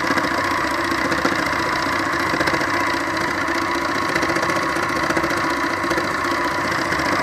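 Electric embellisher (needle-felting machine) running steadily, its needles punching up and down very fast through layered silk fabric with a fast, even mechanical rattle, felting texture into it.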